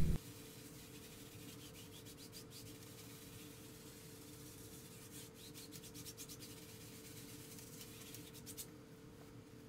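A 1.5-inch paintbrush brushing and blending oil paint on a stretched canvas: faint scratchy bristle strokes in three short spells.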